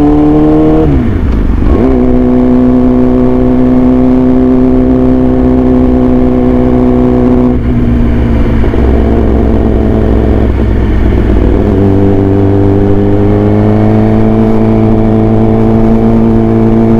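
Yamaha R6 inline-four running through an SC-Project exhaust, holding a steady mid-rev note. The revs dip sharply and recover about a second in. The note drops lower at about eight seconds, then steps back up at about twelve seconds and climbs slowly.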